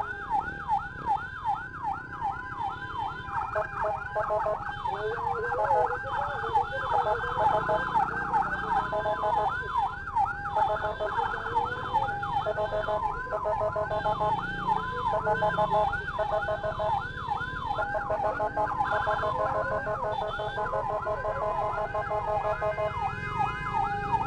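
Several emergency sirens sound together, one in a fast yelp of rising sweeps about four a second, others layered over it as steady and chopped tones. These are the sirens of an ambulance and its motorcycle escort on a patient transfer run.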